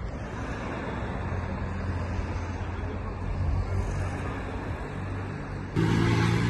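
Nearby road traffic: a vehicle engine running with a steady low hum. The hum jumps louder and stronger just before the end.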